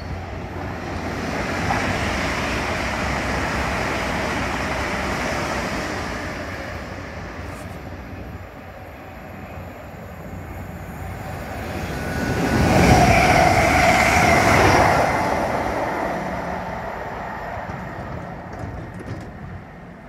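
Electric passenger trains passing through on the main line. The first pass builds within a couple of seconds and fades by about eight seconds in. A second, louder pass with a whine swells about twelve seconds in and dies away toward the end.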